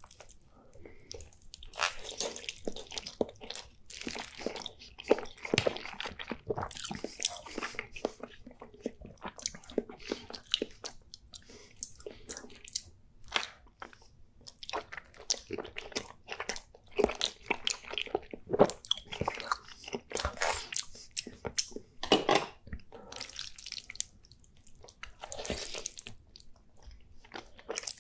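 Wet eating sounds of a man slurping and chewing thick udon noodles in cheese sauce: clusters of slurps, mouth clicks and chewing in irregular bursts with short pauses.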